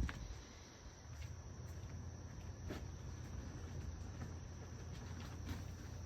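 Faint, steady chirring of crickets, over a low rumble, with a few scattered faint clicks.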